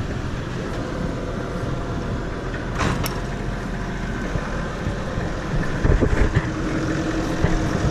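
Truck engine running steadily, with a sharp click about three seconds in and a few knocks around six seconds.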